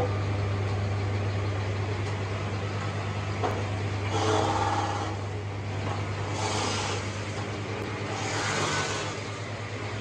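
Sawmill machinery running with a steady low hum, broken about every two seconds by a louder, brighter burst of noise; four bursts in all.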